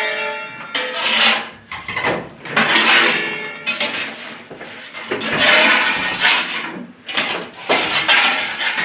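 Metal baking peel scraping repeatedly across the stone floor of a wood-fired oven as flatbreads are shifted and turned, about six or seven rasping strokes with a brief metallic ring near the start.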